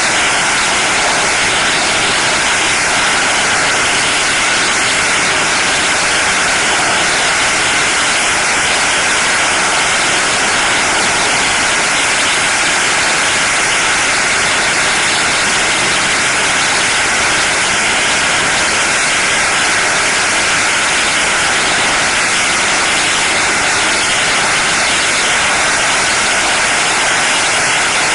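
Millions of firecrackers on bound strings going off without a break, their countless bangs merging into one loud, steady, dense crackle.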